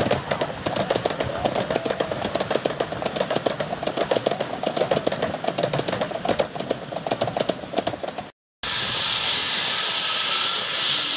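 Miniature railway passenger carriages rolling past, their wheels clicking rapidly on the track. After a short break about 8 s in, a miniature steam locomotive vents steam in a loud, steady hiss.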